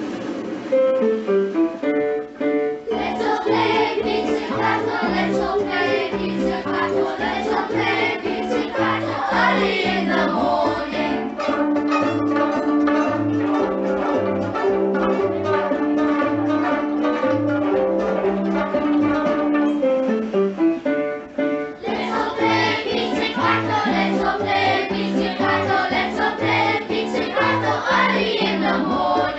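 A class of children plucking violins pizzicato, playing a tune together over a backing track with a steady bass line.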